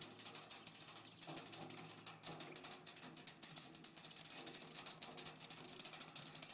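Insects trilling in a steady, very fast unbroken pulse, with a faint low hum beneath.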